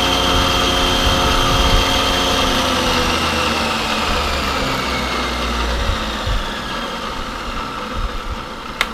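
Excello milling machine's spindle and motor winding down after being switched off: a whine that slowly falls in pitch and fades over several seconds. A single sharp click comes near the end.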